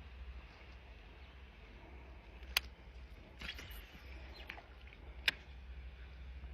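Two sharp clicks or knocks, about three seconds apart, with a few softer clicks between them over a low steady rumble.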